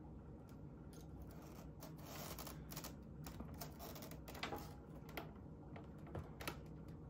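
A cat's paws and body brushing and stepping among objects on a cluttered counter: scattered faint clicks and taps, a brief rustle about two seconds in, and a few sharper taps in the second half.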